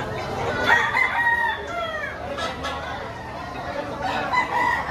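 A rooster crowing about half a second in, with a second crow near the end.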